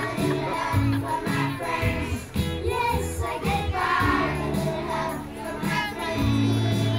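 A song playing, with a chorus of young children singing along.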